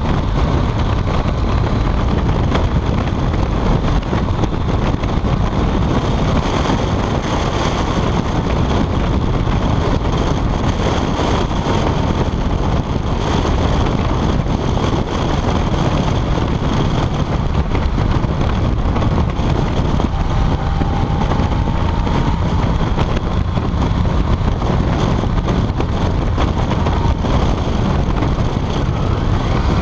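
Steady wind noise on the microphone while a BMW K75 motorcycle cruises, with its inline-three engine and tyres running underneath.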